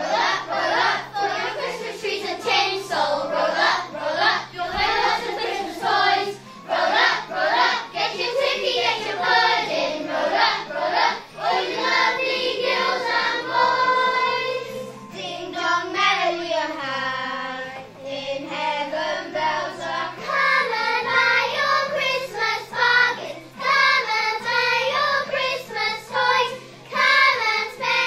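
A group of young children singing a song together in unison, over a musical accompaniment with a steady bass line.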